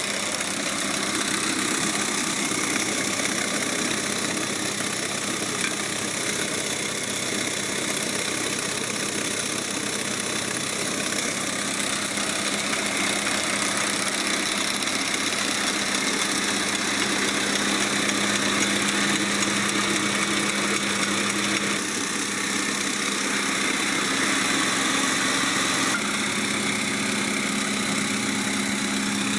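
An engine running steadily with an even hum, changing slightly in tone about two-thirds of the way through and again near the end.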